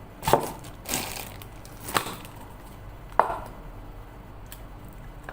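Plastic takeaway packaging being handled: four short, sharp crackles or knocks, about a second apart, as a rubber-banded bag of dipping sauce and a plastic cup are fiddled with.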